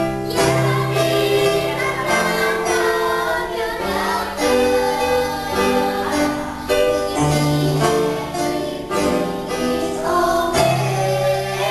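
A group of young girls singing a song together over an instrumental accompaniment with held bass notes.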